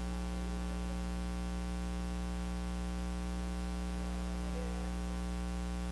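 Steady electrical hum and buzz through a sound system, a ladder of even tones that does not change.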